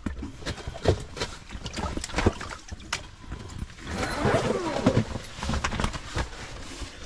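Water splashing and sloshing in a spearing hole with scattered sharp knocks and clatters, as a speared northern pike thrashes on the spear and the spear is hauled up. The splashing is busiest about four seconds in.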